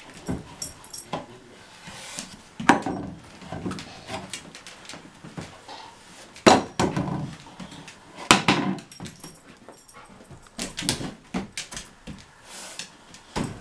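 A large dog moving about with a long cardboard tube over its head: irregular hollow knocks and scrapes as the tube bumps the floor and furniture, the loudest about 3, 6.5 and 8 seconds in, with the dog's own noises between.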